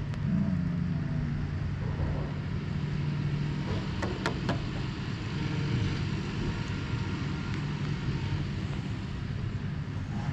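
A motor running steadily with a low, even hum, with a couple of faint clicks about four seconds in.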